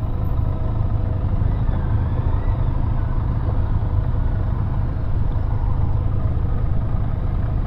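Steady wind rumble and road noise on the camera's microphone while riding a Benelli TRK 502 adventure motorcycle, with its 500 cc parallel-twin engine running underneath.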